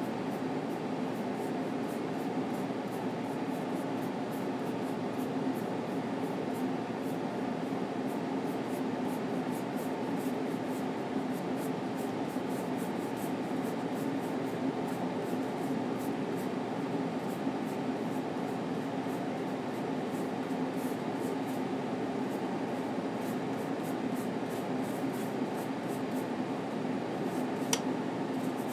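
Steady low background hum with a faint held drone throughout, and one brief click near the end.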